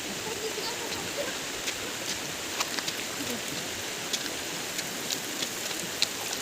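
Steady rushing of flowing water, with scattered small clicks and taps.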